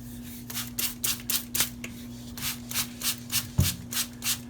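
Maxamet knife edge being stroked across a fine Venev diamond sharpening stone: a quick run of short rasping strokes, about three a second, with a brief pause about two seconds in. One dull knock comes about three and a half seconds in.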